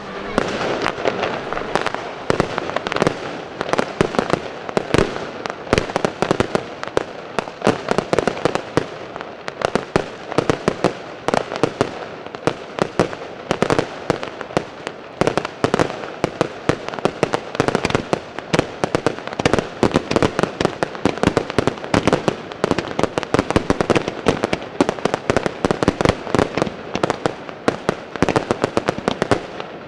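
Professional aerial fireworks display: shells launching and bursting in a rapid, dense barrage of bangs, several a second, with no let-up.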